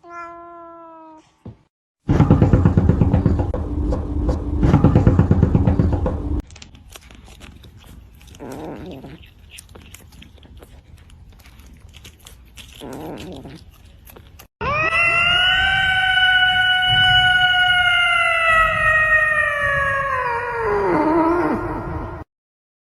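Several short animal clips in a row. The loudest is one long drawn-out animal howl, held for several seconds and sliding down in pitch near the end. Before it comes a loud, noisy stretch of a few seconds.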